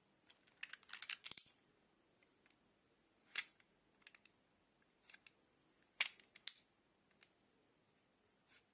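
Sharp clicks and snips of a utility knife blade cutting and scraping the plastic jacket of a coaxial cable. A quick flurry comes about a second in, then single crisp clicks near three and a half and six seconds.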